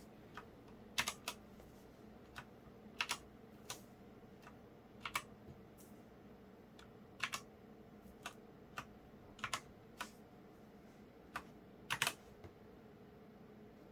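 Micronics MANIC ZK7 gaming keyboard keys pressed one at a time: sparse, irregular key clicks, some in quick pairs, over a faint steady hum.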